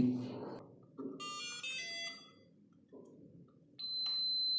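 Electronic beeps from an ExpressLRS RC transmitter setup: a short run of beep tones at changing pitches about a second in, then near the end a single long, steady high beep, the transmitter signalling that the receiver has bound.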